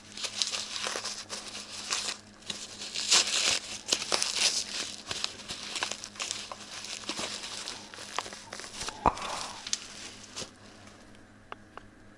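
Paper towel rustling and crinkling as it is pulled and unwrapped from around a small ceramic mug, with many small crackles and one sharper click about nine seconds in. The rustling dies down about ten seconds in.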